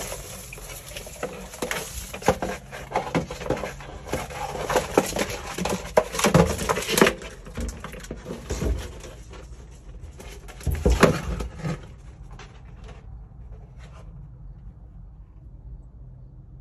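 Scraping, rustling and knocking as a long-handled plastic dustpan is worked through dry pine-needle litter and against the window well's walls to scoop up a muskrat. The noise comes in irregular clusters, loudest around six seconds and again around eleven seconds in, and dies away after about twelve seconds.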